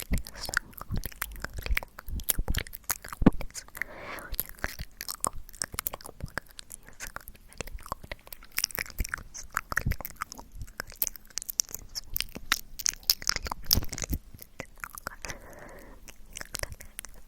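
Close-miked ASMR mouth sounds: a dense, irregular stream of wet clicks, smacks and tongue pops.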